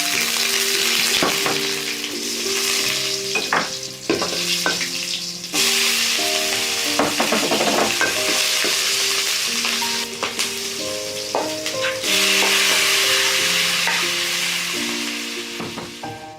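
Food sizzling and frying in a hot pan, with occasional sharp clicks of a utensil against the pan, over a soft background melody of held notes.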